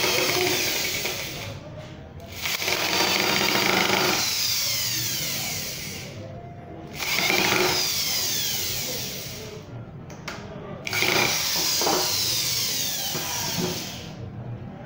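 Corded electric drill boring into the end of a wooden batten, run in four bursts with short pauses, its pitch falling away at the end of each burst.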